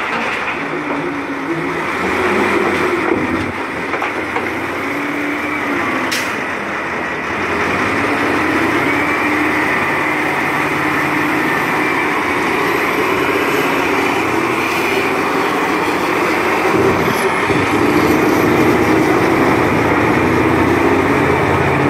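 Heavy diesel engines of a Caterpillar 988F wheel loader and a Cat 775E haul truck running steadily at close range, the loader working as it backs away from the truck. There is a single sharp click about six seconds in, and the engines get a little louder near the end.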